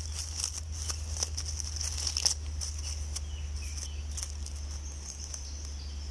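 Steady high-pitched insect chirring in the woodland, swelling and fading, with scattered crackles of dry oak leaf litter as a hand handles a mushroom, over a steady low hum.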